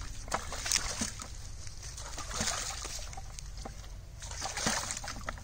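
Hands splashing and sloshing through shallow muddy water in irregular strokes, with wet mud dropped into a plastic bucket.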